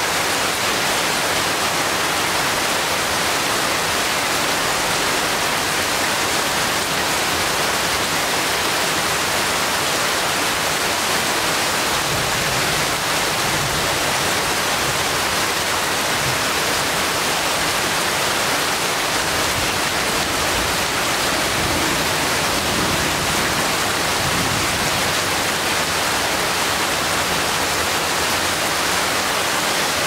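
Steady heavy rain falling on forest leaves: an even, unbroken hiss.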